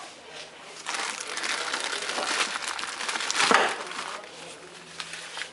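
Paper wrapping being crinkled and torn open from around new hydraulic valve tappets: a dense crackle lasting about three seconds, loudest near its end.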